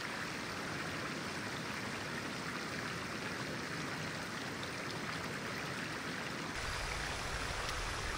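A clear river flowing over stones: a steady rush of water. About six and a half seconds in it shifts to a slightly louder, fuller sound with more low rumble.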